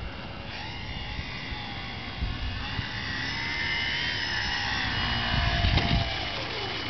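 Small electric RC airplane's motor and propeller whining, growing louder as it comes in low, then dropping in pitch and fading near the end as it is throttled back to land on the snow.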